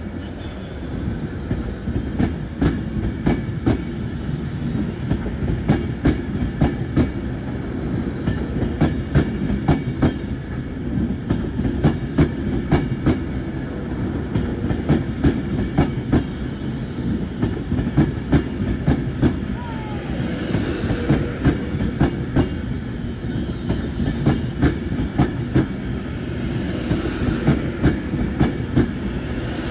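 Class 390 Pendolino electric train running along the platform: a steady rumble of wheels on rail with regular, repeating clicks as the bogies cross the rail joints.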